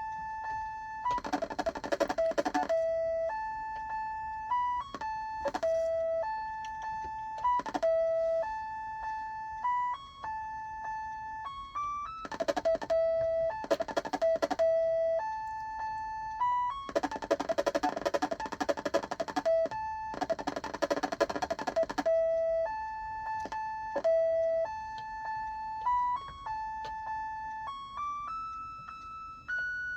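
Electronic music chip of a Mr. Christmas Marquee Merry-Go-Round playing a beeping, music-box-like melody of single notes that step up and down in pitch, with several louder, fuller-sounding stretches.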